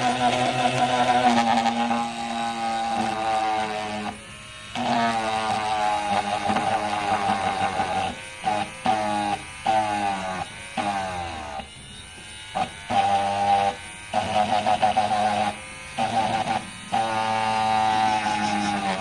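Small cordless rotary tool motor whining while its drill bit is pressed into hard material. Its pitch sags and recovers under load, and it stops and restarts several times.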